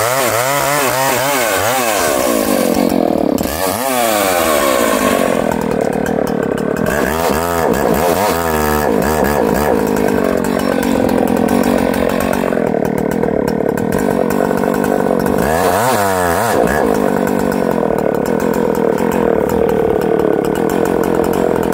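Husqvarna 2100XP's 100cc two-stroke chainsaw engine running hard at high revs, pulling a 50-inch bar through wood, its pitch dipping and climbing back several times as it bogs and recovers in the cut.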